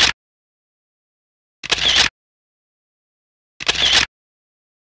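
Camera shutter click sound effect, three times about two seconds apart, each about half a second long, with dead silence between.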